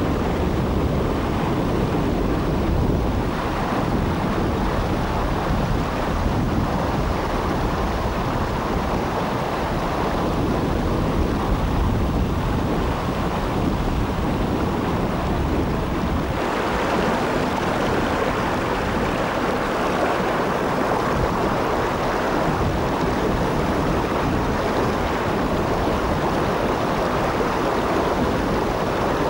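Floodwater rushing down a flooded street in a steady torrent, with wind noise on the microphone.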